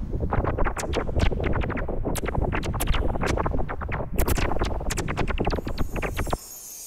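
A dense, irregular run of sharp clicks and cracks over a low rumble, cutting off abruptly a little over six seconds in; a faint hiss follows and slowly grows.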